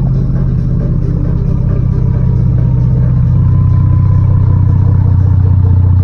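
Ford 3.5 L EcoBoost twin-turbo V6 running steadily through a cat-back exhaust with the muffler and resonators removed. The exhaust note drops slightly in pitch and steadies about three seconds in.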